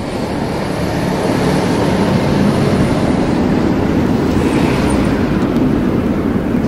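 Steady, noisy low rumble that swells up over the first couple of seconds and then holds.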